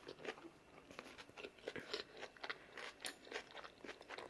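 A person chewing a mouthful of tofu, vegetable and udon noodle stir-fry close to the microphone: a faint, irregular run of small wet mouth clicks and crunches.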